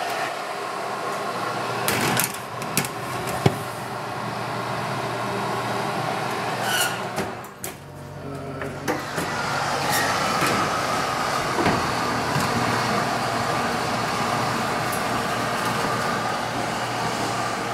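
Metal baking sheet clanking three times as it is slid onto the rack of a wall oven, over a steady mechanical hum that carries on after a break.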